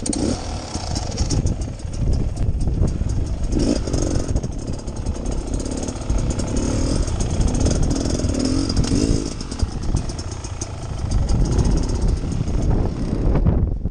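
Beta Xtrainer 300 two-stroke single-cylinder dirt bike engine running at low trail speed, its note rising and falling with the throttle, with knocks from the bike over rough ground.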